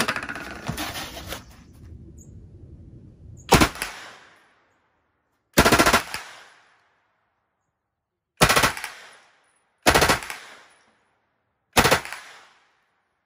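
Stemple/BRP STG-76 open-bolt 9mm submachine gun, fired from its bipod, shooting five short bursts of full-auto fire a second or two apart, each with a brief echo. Faint handling noises come before the first burst.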